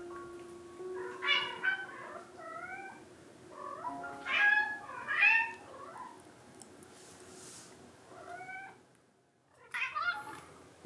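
Domestic cat meowing repeatedly, about seven meows with bending pitch, three of them in quick succession in the middle and a last one near the end.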